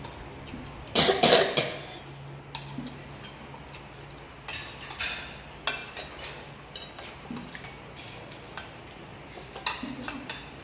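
Metal spoons clinking and scraping on ceramic plates and bowls during a meal, in scattered separate clicks. A single loud cough about a second in is the loudest sound.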